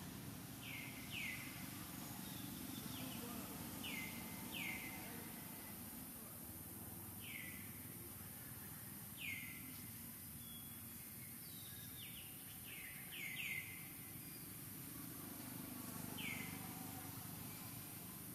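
A bird calling with short downward-sweeping chirps, singly or in quick pairs and once a run of three, every few seconds, over a steady high hiss of outdoor background noise.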